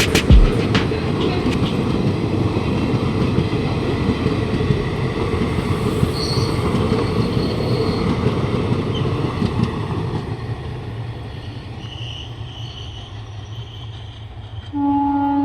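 A freight train rolling past, a loud steady rumble of wagons that fades away over the last few seconds, with a thump right at the start and brief high wheel squeals about six seconds in and again near the end. A train horn starts sounding just before the end.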